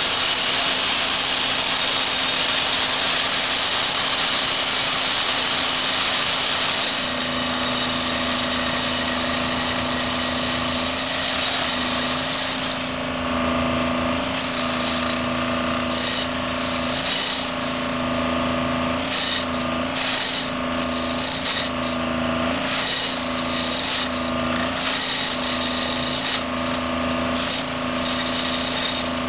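Railroad track-tamping machine at work, with its engine and hydraulics running steadily. About halfway through, its vibrating tamping tines start driving into the crushed limestone ballast, adding a rough, pulsing rhythm about once a second.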